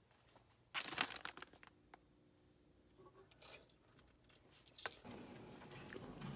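Crinkling and rustling in a quick run of short strokes about a second in, then a few sharp clicks near the end followed by a soft steady hiss.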